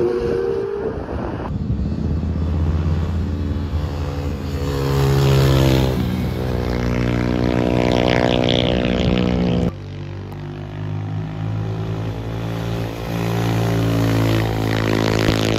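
Motorcycle engines passing through a corner in a few back-to-back clips, each running at a steady, fairly high engine note; the sound changes abruptly twice, about one and a half seconds in and about ten seconds in.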